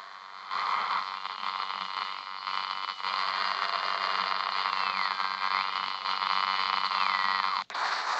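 Harsh static hiss with a thin high whistle running through it that drops in pitch, comes back up, then slides down. The hiss cuts out suddenly near the end and a short burst of static follows.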